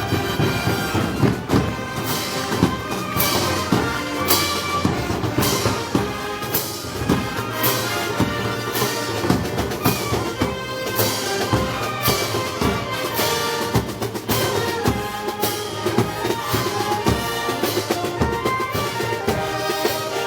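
Festival band music from a Moros y Cristianos parade band, with sustained notes over a steady beat of cymbal and drum strikes.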